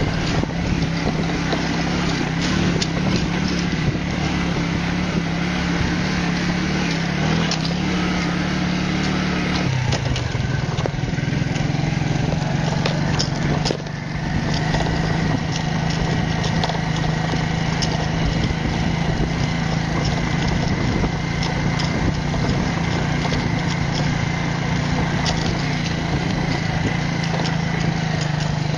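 Small motorcycle engine running steadily under way, heard from the rider's seat. Its note shifts about ten seconds in, and there is a brief dip near fourteen seconds.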